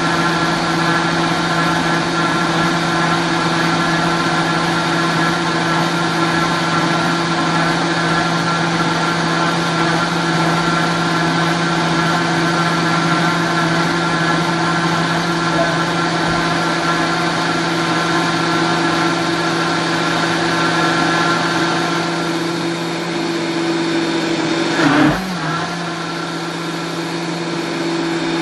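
Vitamix blender motor running steadily below full speed with a constant hum, churning heavy cream that has whipped and is now just about separating into butter and buttermilk. Near the end the motor's pitch dips with a brief louder burst.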